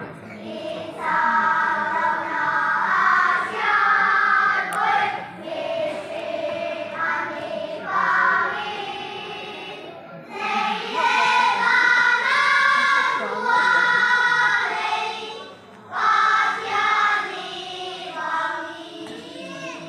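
A children's choir singing a song in sustained phrases, with brief pauses about ten seconds in and again about sixteen seconds in.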